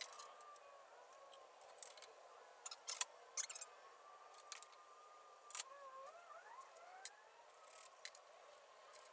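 Sharp metallic clicks and clinks of a galvanized steel cabinet suspension rail being handled and fitted against the wall. A faint wavering whine sits underneath, rising briefly about two-thirds of the way in.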